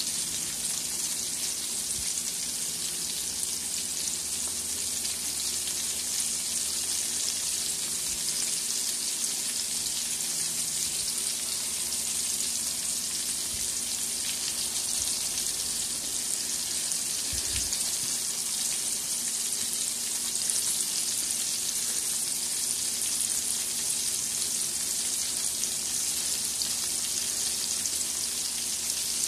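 Sardines shallow-frying in hot oil in a wok, a steady high sizzling hiss that holds unchanged throughout.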